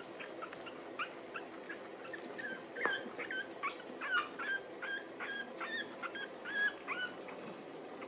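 Three-week-old French bulldog puppies whimpering and squeaking in short high yips while they feed, a few at first, then several a second. A single soft knock about three seconds in.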